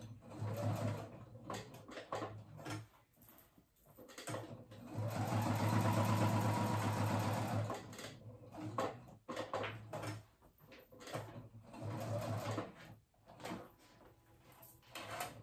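Electric sewing machine stitching Velcro loop tape onto fabric in stop-start spurts, with one longer steady run of about three seconds near the middle.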